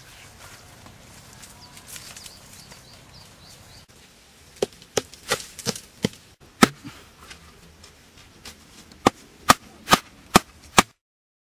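Wooden stakes being hammered into the ground, making sharp wooden knocks. About six knocks come a few seconds in, then after a pause five more at about two a second.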